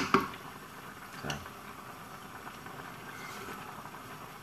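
A few sharp knocks, like a ladle against a metal pot, right at the start, then a steady low rushing noise from the stove, where a pot sits on a gas burner under a running range hood.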